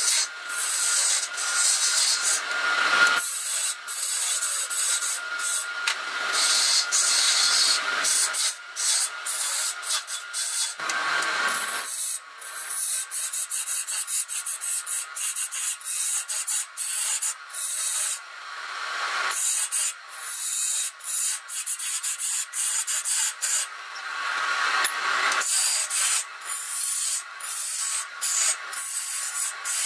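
Hand-held gouge cutting into a spinning wooden blank on a wood lathe: a continuous hissing, scraping cut as shavings peel off, with many short breaks as the tool eases off. Several heavier, fuller cuts come a few seconds apart.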